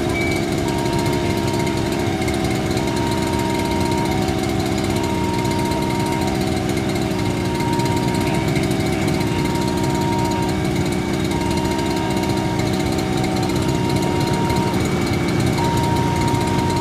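Airbus A330neo's Rolls-Royce Trent 7000 turbofan engines running on the runway before take-off, heard from behind the jet as a loud, steady rumble.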